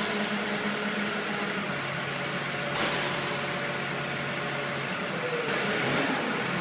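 Heavy machinery engine running with a steady hum that drops in pitch about two seconds in, with a short burst of hiss about three seconds in.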